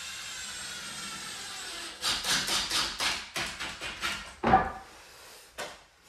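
Cordless drill driver driving a screw into a softwood door lining: a steady motor whine with a slightly rising pitch for about two seconds, then a run of rapid rattling knocks as the screw bites into the timber. One loud, sharp knock comes about four and a half seconds in, and a lighter click near the end.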